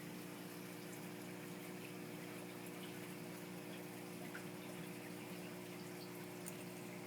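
Saltwater reef aquarium equipment: a steady pump hum over running, trickling water, with a few faint ticks.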